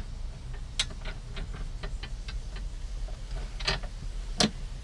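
Hand ratchet wrench clicking in uneven runs, several clicks a second, as the seat-mounting bolts are turned. There are a few louder metallic clicks about a second in and near the end.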